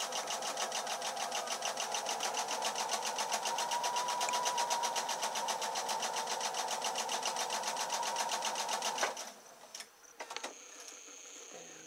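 Electric domestic sewing machine running a long seam through cotton fabric, its needle clattering in a fast, even rhythm over the motor's whine. It stops abruptly about nine seconds in, followed by a few faint clicks.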